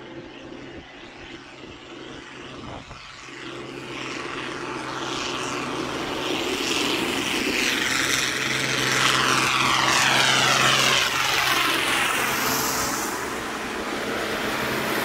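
A convoy of tractors driving past, their diesel engines droning steadily with tyre noise from the wet road. The sound grows louder as the lead tractors come up and pass, with a falling sweep as each one goes by.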